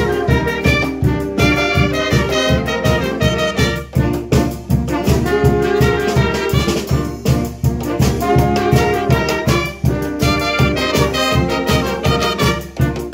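A banda wind and brass band playing a tune together: flutes, clarinets, trumpet and trombone over a steady low beat.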